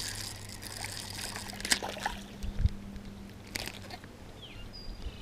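Faint sloshing of water with a few light knocks, over a low steady hum.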